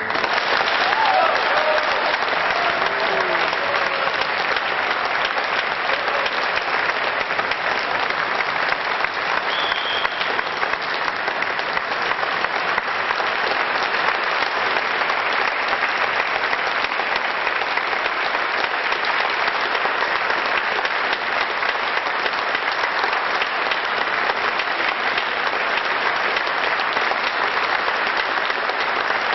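Audience applauding, an even, steady clapping that sets in as the music stops and holds at the same level throughout.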